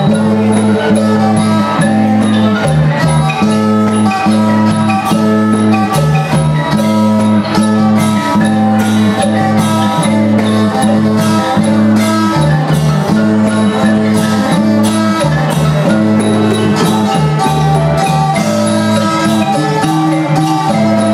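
Thai folk dance music from a live student ensemble: a repeating melody over a steady, looping bass pattern, with light percussion keeping time.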